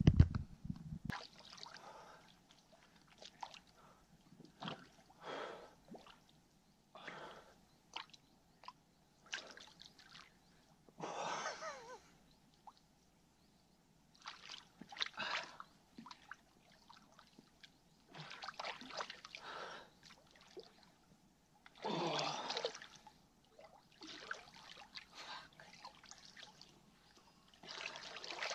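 Lake water splashing and trickling in irregular bursts, each a second or so long, as a man standing waist-deep in the lake scoops it over himself to wash.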